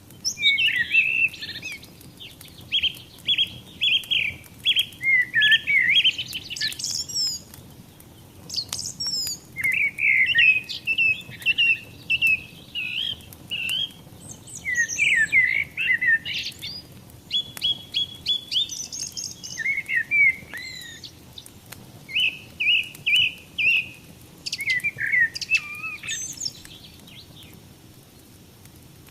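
Songbirds singing in repeated bursts of quick chirps and warbled phrases, with short pauses between bursts, over the faint crackle of a wood fire.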